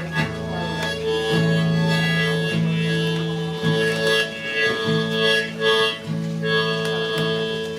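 Blues harmonica solo in a live set: long held notes, one after another, over a low steady backing tone.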